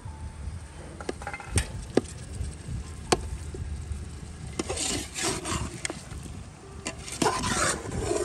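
A perforated metal skimmer stirring a goose and potato stew in a large metal pot: a few sharp knocks of the spoon on the pot, then two longer spells of scraping and rubbing against the pot in the second half.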